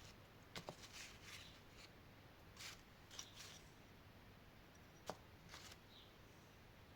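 Faint scattered clicks and light scraping, about half a dozen small knocks and rubs over quiet room tone; the sharpest click is about five seconds in.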